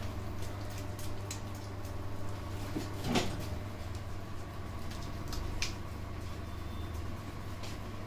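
Hands rubbing and pressing plastic cling film over a soapy bare back during a massage, giving scattered squishy crackles and clicks, with one louder slap-like sound about three seconds in, over a steady low hum.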